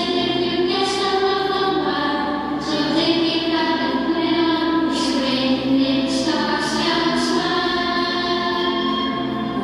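A group of voices singing together, a slow song with long held notes.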